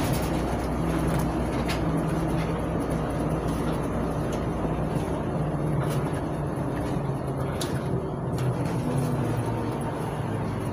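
Inside a LiAZ 5292.71 city bus under way: its MAN E0836 compressed-natural-gas engine hums steadily, its note shifting slightly in pitch, under road noise and occasional short rattles.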